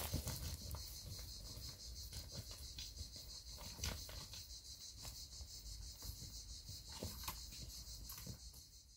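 Faint steady chorus of insects, high-pitched and continuous, with a few faint knocks from steps on the stony path.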